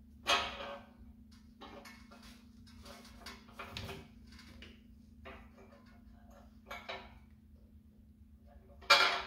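Metal clanks and clinks from a homemade steel engine stand as a diesel V8 is rotated upright on its pivot and the locking hardware is handled. Two louder clanks, one just after the start and one near the end, with lighter clinks between, over a faint steady hum.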